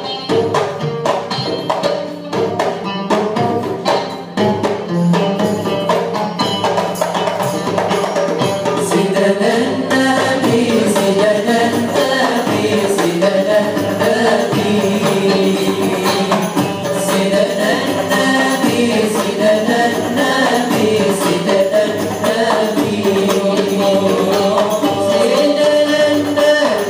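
A male group singing devotional Maulid songs in unison, accompanied by beaten frame drums. The drumming is most prominent in the first few seconds, and the sung melody grows fuller and steadier after about five seconds.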